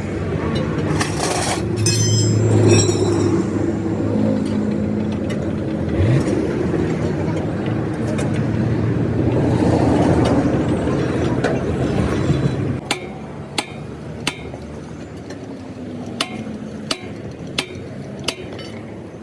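Steady rumble of engines and road traffic, which drops off suddenly about two-thirds of the way through. Then come a handful of sharp metal clinks, spaced irregularly, less than a second apart: tools striking or being set down on truck parts.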